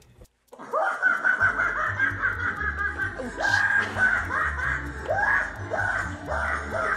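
Spirit Halloween Lucky Bottoms clown animatronic running its show: music with a clown's cackling laugh over it, starting about half a second in, with a bass line joining shortly after.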